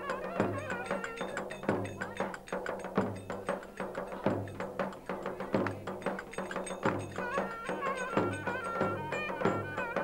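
Turkish folk dance music: a davul bass drum beats a steady rhythm, with heavy strokes about every second and a bit and lighter strokes between, under a wind instrument playing an ornamented, wavering melody.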